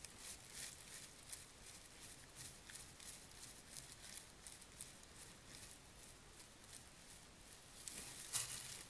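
Faint, irregular crackling and rustling of dry leaf litter as a black bear moves about right at a trail camera, with a louder rustle about eight seconds in as it turns away.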